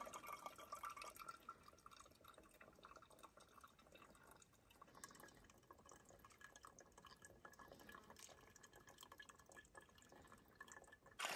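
Near silence: faint lakeside water sounds with light drips.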